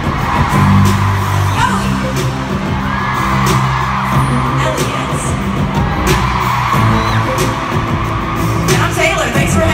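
Loud pop music played through a stadium concert sound system, with sustained bass notes and a sharp beat, heard in a large echoing arena. Fans scream and cheer over it.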